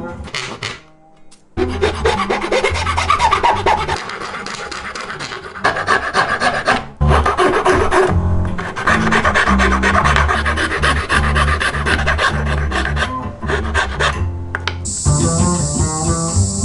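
Rasping and rubbing of hand-shaped wood, a small wooden pendant piece being abraded in repeated strokes, in several short stretches with brief breaks between them. Background music with a steady low bass line runs underneath, and a steady high hiss joins near the end.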